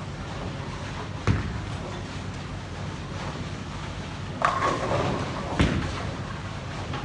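Bowling alley sounds over the steady rumble of the hall: a heavy thud about a second in, then a louder clattering crash with a brief ring around the middle, and another heavy knock a second later, the sounds of bowling balls hitting the lanes and pins being struck.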